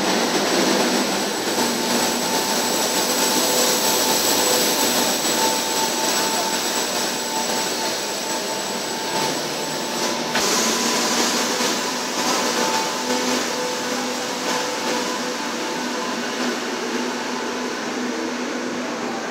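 Madrid Metro 2000A-series electric train moving slowly along the platform: a steady rumbling hiss of the running train with a steady whine from its motors, getting gradually quieter.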